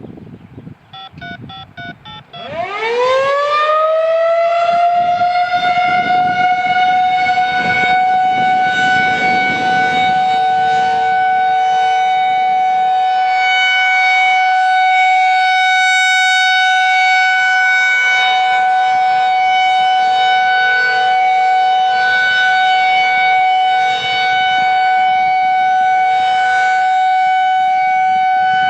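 Federal Signal 2001-SRNB electromechanical warning siren winding up: its pitch rises for about two seconds, then levels off into a loud, steady tone that holds. Just before the wind-up there is a brief run of stepped electronic beeps.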